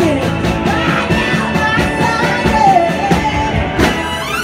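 Live rock band playing: a woman belting the lead vocal over electric guitars, bass and a steady beat, with a rising glide in pitch near the end.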